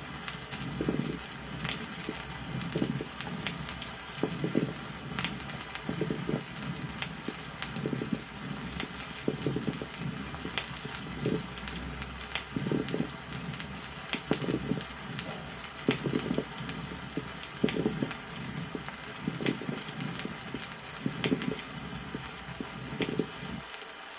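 Stethoscope recording of a patient's chest with moist ringing (sonorous) rales: wet crackles over low breath sounds that swell and fade in a regular rhythm, about every one and a half to two seconds. The hiss and surface noise of an old vinyl record run underneath.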